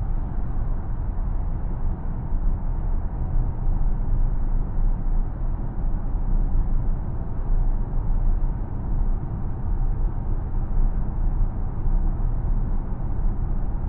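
2025 Hyundai Santa Fe on the move: steady driving noise of tyres and engine, a low, even rumble.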